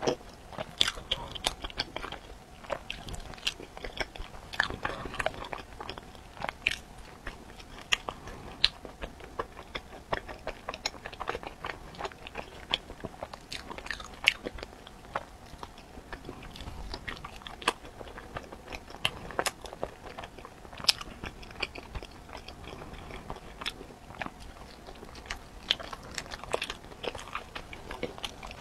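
Close-miked chewing of soft bread filled with purple sweet potato, mochi and cheese: an irregular run of small sticky mouth clicks and smacks.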